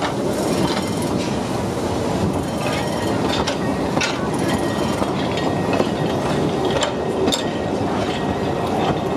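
Narrow-gauge railway train running: a steady, loud noise with scattered sharp clicks.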